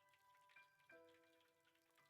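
Faint background music: a soft instrumental with held notes, a new note or chord coming in about every half second to second.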